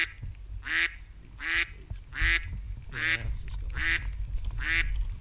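Adult Canada goose with goslings honking over and over in a steady, regular series, about one call every 0.8 seconds.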